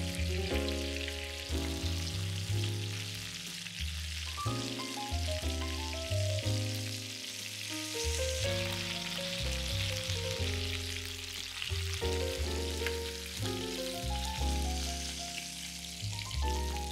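Chicken leg quarters sizzling as they fry in hot oil and butter in a frying pan, a steady crackling hiss. Under it runs background music, a melody of distinct notes.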